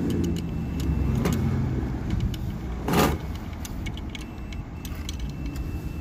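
A motor vehicle engine idling with a steady low rumble, with a faint high steady tone coming and going over it and one sharp knock about three seconds in.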